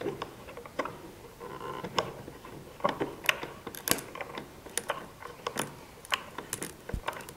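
A bolt on a wooden earthquake shake table being turned by hand, giving irregular clicks and ticks as one plate is slowly shifted along the fault line.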